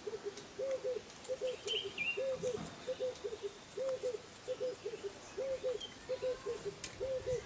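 A bird cooing over and over: short low notes in twos and threes, repeating steadily, with a brief higher chirp from another bird about two seconds in.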